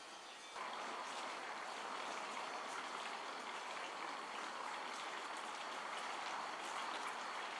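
Steady rush of running or splashing water, starting suddenly about half a second in.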